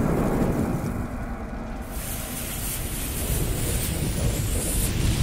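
Sound effect of a lit fuse and flames: a steady rushing hiss over a low rumble, the hiss growing brighter about two seconds in.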